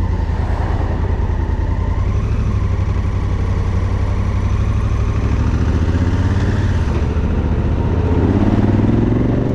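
Honda Africa Twin CRF1000's parallel-twin engine idling with a steady low throb, heard from the rider's seat. Near the end an engine note rises as a vehicle moves off.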